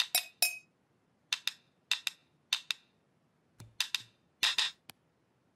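Two wooden kitchen utensils knocked together: about a dozen sharp wooden clacks, mostly in quick pairs, with short silent gaps between.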